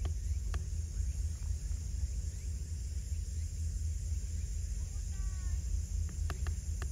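Shoreline evening ambience: a steady low rumble under a steady high hiss. A brief chirping call comes about five seconds in, and a few sharp clicks come near the end.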